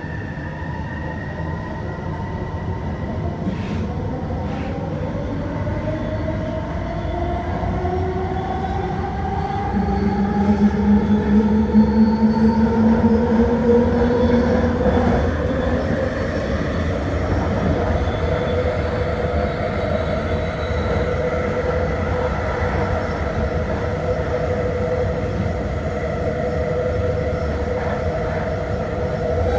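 Vancouver SkyTrain car running on its guideway, its linear-induction-motor whine gliding up in pitch for about the first fifteen seconds as the train picks up speed, then holding steady over a steady rumble. A louder low hum joins for a few seconds about ten seconds in.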